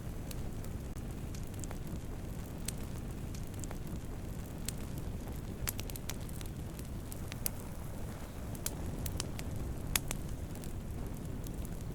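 Campfire of burning wood crackling: a steady low rush of flames with irregular sharp pops and snaps, one of the loudest pops near the end.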